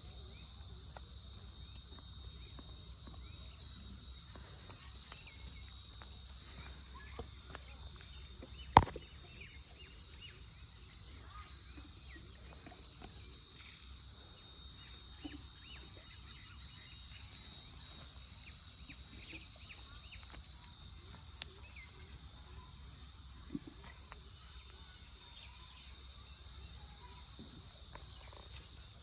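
Steady high-pitched chorus of insects, crickets by their sound, running without a break, with one sharp click about nine seconds in.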